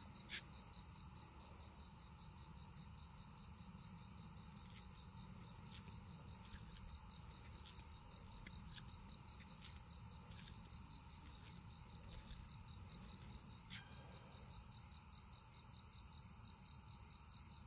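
Faint, steady chorus of crickets at night: a high, rapidly pulsing trill, with a few faint ticks.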